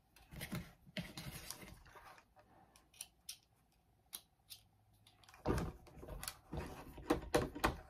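Handling noise: light clicks and rustles of multimeter test leads being handled and their probes pressed against a small battery's terminals, busier and louder over the last couple of seconds.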